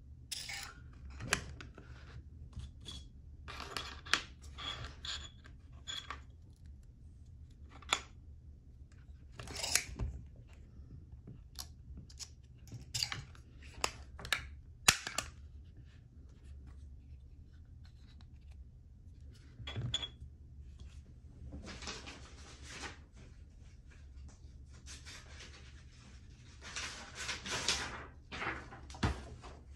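Irregular plastic and metal clicks and snaps from a Bostitch B175 compact stapler, handled while open with a strip of staples being loaded into its channel, then closed and set down. Longer scraping, sliding sounds come near the end.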